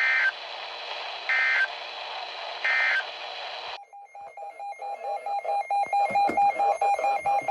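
Three short EAS end-of-message (EOM) data bursts, each about a third of a second and spaced about a second apart, closing the previous warning over radio hiss. About four seconds in, a pulsing electronic alert tone starts, switching rapidly back and forth between pitches several times a second.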